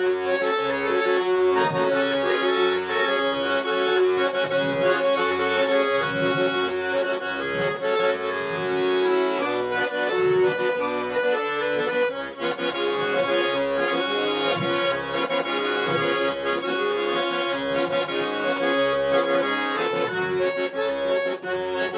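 Accordion playing an instrumental interlude of a song: held chords over bass notes on a steady beat.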